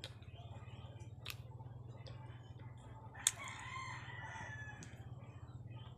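Rooster crowing once, a call of about a second and a half starting a little after three seconds in, right after a sharp click. A few other sharp clicks and a steady low hum run underneath.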